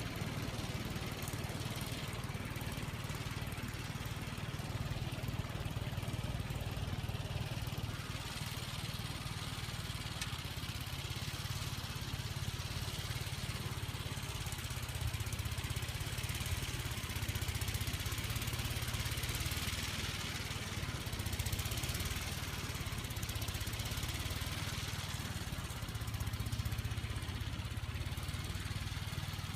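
1959 Gravely Model L's single-cylinder engine running steadily under load, with a steady hiss over it.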